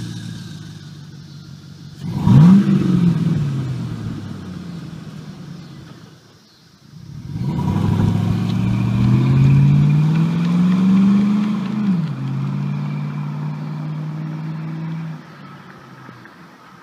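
2000 Chevy Silverado 1500's 5.3-litre V8 running through a Flowmaster 40 series muffler that dumps before the rear axle. It gives a quick rev about two seconds in. After a short lull it accelerates away, the engine note climbing for several seconds, then dropping suddenly to a lower steady pitch before falling away sharply near the end.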